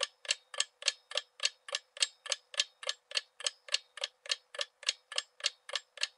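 Clock ticking: a steady, even run of sharp ticks, about three to four a second.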